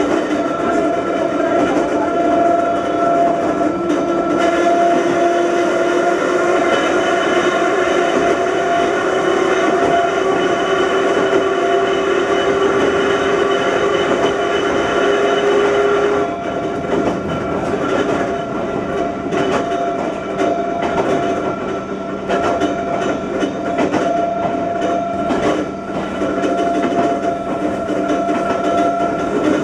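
Ohmi Railway 220 series electric train running under power: its nose-suspended traction motors whine, slowly rising in pitch. About halfway the whine stops and the car coasts, quieter, with wheels clacking over rail joints.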